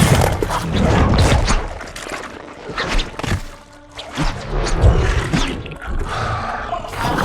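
Designed film sound effect for the three-headed monster King Ghidorah: a dense run of cracks and thuds over a low rumble, with a lull about four seconds in and a sharp hit just after.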